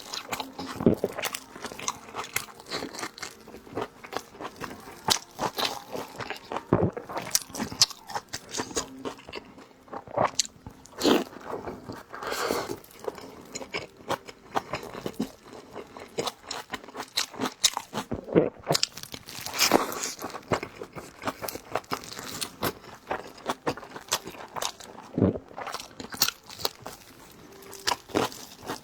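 A person chewing and biting large steamed dumplings close to the microphone, with a steady run of small mouth clicks and smacks.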